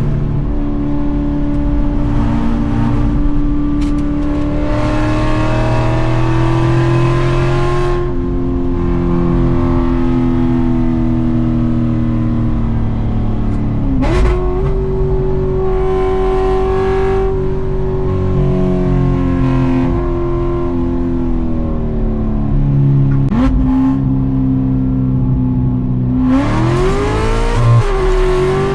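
Stage-4-cammed 6.2-litre V8 of a manual C7 Corvette running hard on track, its note holding, sagging and climbing with throttle and gear changes. There is a sharp jump in pitch about halfway through and a quick rising rev near the end.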